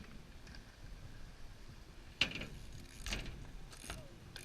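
BMX bike clattering on the skatepark: a sharp clack a little over two seconds in, then two shorter rattling scrapes.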